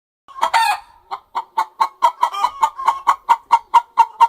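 Hen clucking: one louder opening call, then a rapid, even run of short clucks, about five a second.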